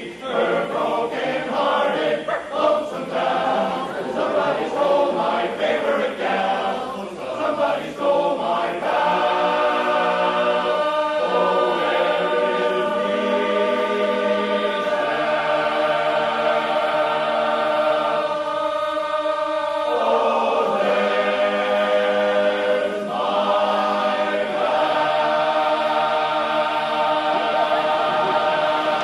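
Men's barbershop chorus singing a cappella in close four-part harmony, the closing bars of a song: moving phrases at first, then a run of long held chords, ending on a final chord sustained for about five seconds.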